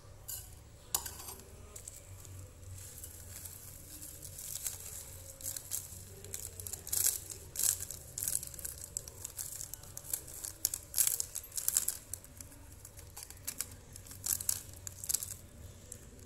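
A Nescafé Classic instant-coffee sachet crinkling as it is shaken and squeezed empty over a bowl: a run of sharp, irregular rustles.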